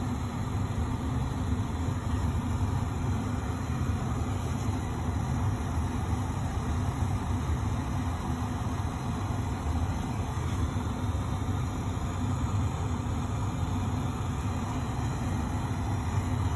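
Steady low mechanical hum of laboratory equipment running, even and unchanging throughout.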